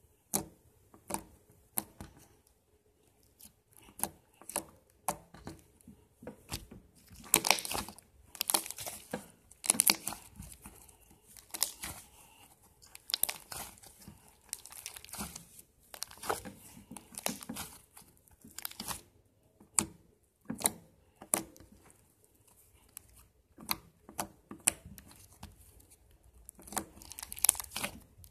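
Glossy glue slime squeezed, poked and folded by hand, giving irregular sharp clicks and crackles in bursts, with short quieter gaps between.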